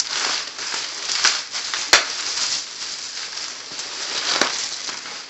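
Plastic bubble wrap being handled and pulled off a packaged laptop screen, crinkling continuously, with two sharp clicks about two and four seconds in.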